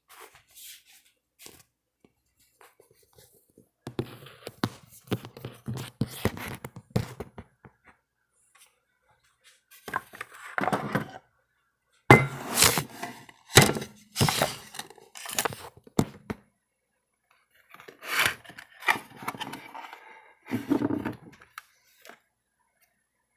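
Intermittent handling noise: knocks, scrapes and clatter of things moved about on a table, in several bursts with sharp clicks, loudest around the middle.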